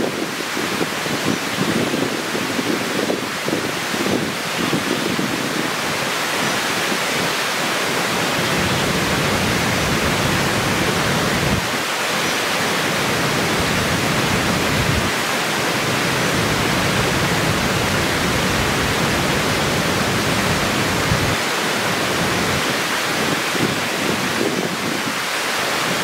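Water rushing over a low weir and rocks as a steady, unbroken wash of noise. A low rumble swells and fades beneath it through the middle stretch.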